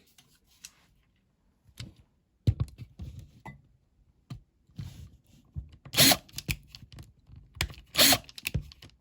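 Tools and a small diecast model being handled on a workbench as the owner tries to undo a rivet: scattered clicks and knocks, with a few louder short scraping bursts in the second half.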